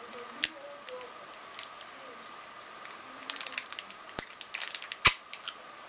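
Small sharp clicks and wet mouth sounds as a wrapped hard candy is licked and sucked against the teeth and lips. The clicks are scattered at first, then come in a quick run about three seconds in, with the loudest single click about five seconds in.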